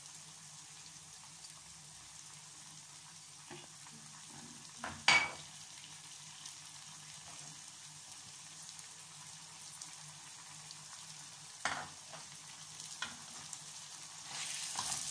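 Oil sizzling under onions, rice and tomato sauce in a frying pan. A sharp knock comes about five seconds in and another near twelve seconds. Near the end a spatula starts stirring and the sizzling grows louder.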